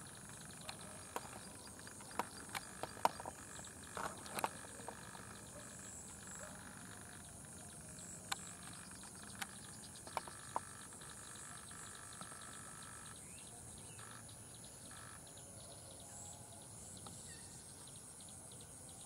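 Steady dusk chorus of insects, a high continuous buzz over a lower steady trill, with a few short sharp clicks scattered through it.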